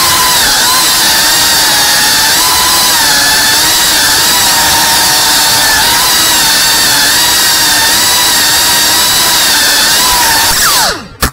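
Whoop-class FPV drone's motors and ducted propellers whining steadily, the pitch wavering up and down with the throttle. Near the end the pitch falls away and the sound breaks up and cuts out.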